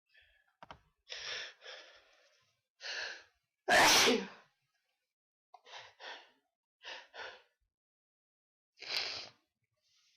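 A person sneezing: a few sharp, noisy breaths build up to one loud sneeze about four seconds in, followed by short breaths in pairs and another breath near the end.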